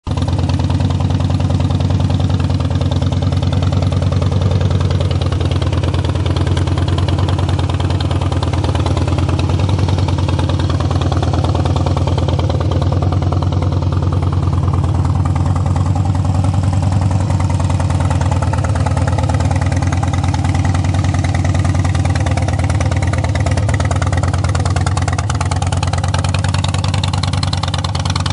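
2010 Harley-Davidson Dyna Super Glide's Twin Cam 96 V-twin idling steadily through Rush slip-on mufflers, a low, even rumble.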